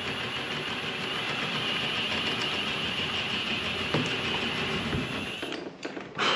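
Cordless drill running steadily for about five and a half seconds, working into the wooden door frame, then stopping. A few sharp knocks follow, the loudest near the end.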